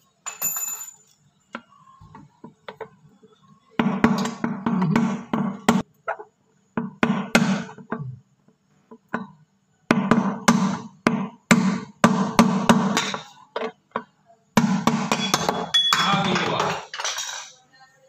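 Hammer blows on a punch driving the outer race of a broken drum bearing out of a front-load washing machine drum, in four fast runs of strikes with short pauses between, the metal ringing under each run.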